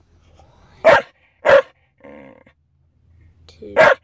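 Dog barking three times in short, sharp barks. Between the second and third comes a softer, drawn-out whine, and a rising whine leads straight into the last bark.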